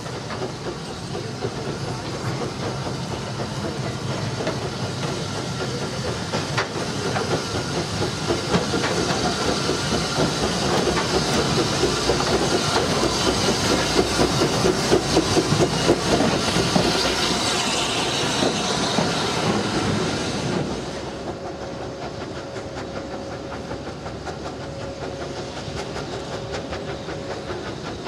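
Bagnall 0-4-0ST saddle-tank steam locomotive running along the track with steam hissing and its wheels clacking on the rails. It grows louder as it comes close, then drops suddenly about two-thirds through to a fainter, more distant sound.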